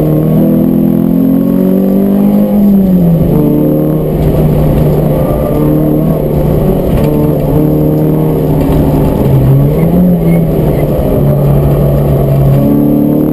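Peugeot 106 S16's 1.6-litre sixteen-valve four-cylinder engine, driven hard on a circuit and heard inside the cabin. The revs climb for the first couple of seconds, drop sharply about three seconds in, then hold fairly steady with a brief dip and rise near ten seconds, and climb again near the end.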